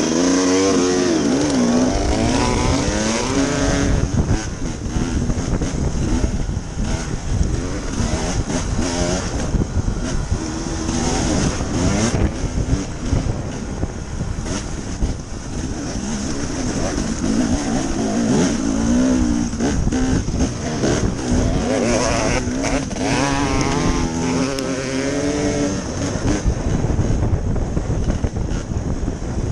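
2014 Husqvarna TE300 two-stroke dirt bike engine on the trail, the revs rising and falling over and over as the rider works the throttle and gears.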